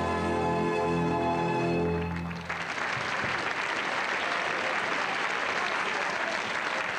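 Show music ends on a long held chord about two seconds in, and a cabaret audience breaks into applause that carries on to the end.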